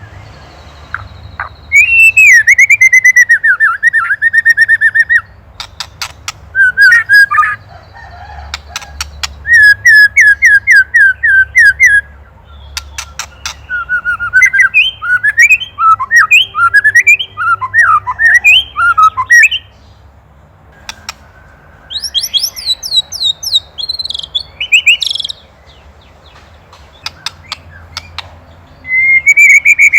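White-rumped shama singing in loud bursts of fast, evenly repeated notes, the rattling 'ketrekan' call of an agitated shama, with short pauses between the bursts. A run of quick, varied rising and falling notes comes in the middle, and higher notes come near the end.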